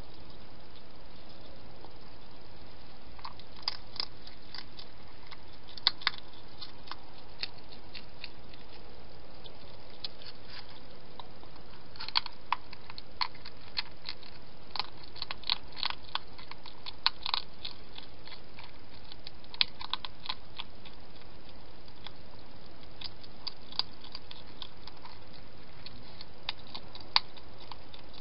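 A hedgehog chewing and crunching food from a dish: irregular crisp crunches in short bursts over a steady background hiss.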